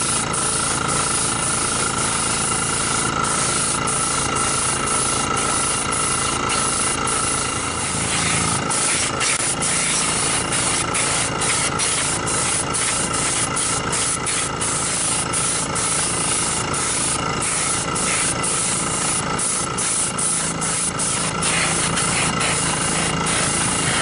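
Airbrush spraying Cerakote, a steady hiss of compressed air with many brief breaks as the trigger is eased off and on. A steady low hum runs underneath.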